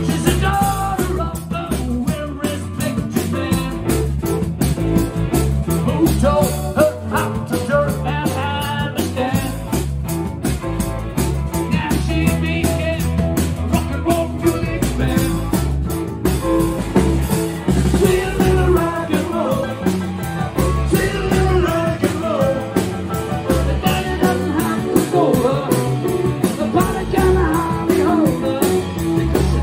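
Live rock band playing: electric guitar, bass guitar and drum kit with a steady beat.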